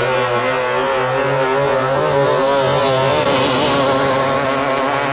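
Engines of two BT9 two-ring class racing speedboats running flat out side by side: a loud, steady engine note with several tones. A hiss rises about three and a half seconds in.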